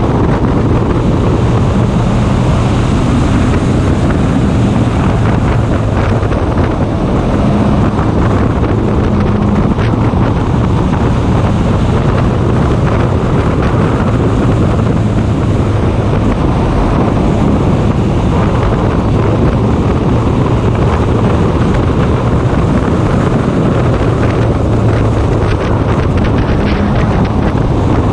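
Race car's engine running at a steady speed, heard from an onboard camera with heavy wind buffeting the microphone.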